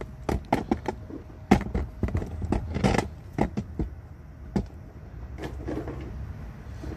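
Irregular metallic clicks and knocks, several close together in the first few seconds, then scattered ones, from a hand-ratchet come-along cable puller being handled on a steel-mesh trailer deck.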